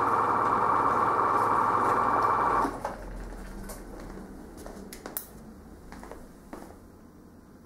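A steady mechanical whirr with a low hum, typical of a Super 8 projector running off the end of the reel, that stops abruptly about two and a half seconds in. Faint scattered clicks and knocks follow, growing quieter.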